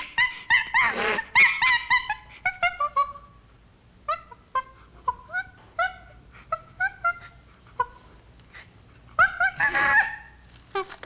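Chimpanzee screaming and whimpering: a quick run of short, high, upward-hooking calls in the first three seconds, then single whimpers spaced out, and a loud burst of screams about nine seconds in.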